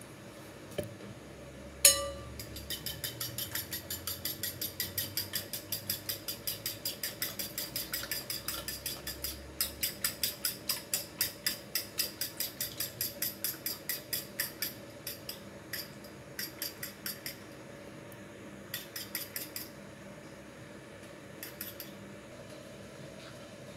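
Metal fork beating raw eggs in a glass bowl, clinking against the glass. One sharp clink about two seconds in, then a fast steady rhythm of about four clinks a second that stops after about thirteen seconds, followed by a few scattered taps.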